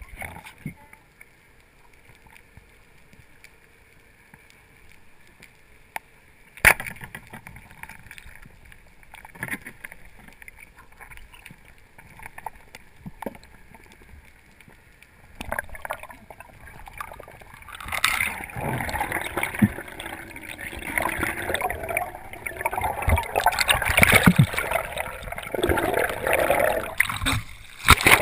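Underwater sound from a diving camera: quiet water noise with scattered clicks and one sharp snap about six and a half seconds in, then loud bubbling and rushing water over the last ten seconds.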